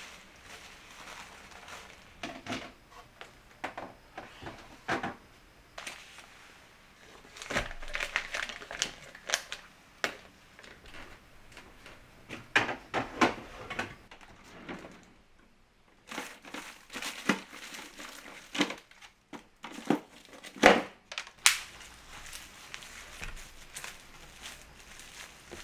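Plastic packaging and storage containers being handled: irregular clicks and short crackly bursts, busiest in the middle and in the later third, with a brief lull between.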